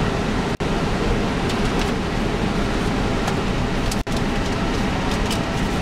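Steady flight-deck noise of an Airbus A319 taxiing with its engines at idle: an even rumble and air hiss. It drops out for an instant twice.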